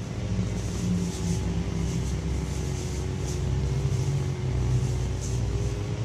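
Low rumble of a motor vehicle engine running, swelling a little around four to five seconds in, over the steady rush of creek water.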